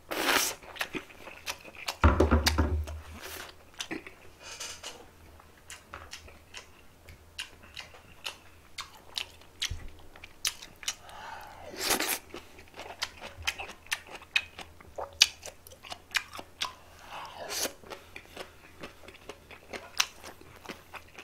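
A person chewing food close to the microphone, with many small wet clicks and smacks. A heavy thump about two seconds in is the loudest sound.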